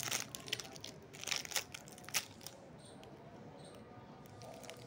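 Foil chocolate wrapper being crinkled and peeled open by hand: bursts of crackling in the first two seconds or so, then it goes quieter.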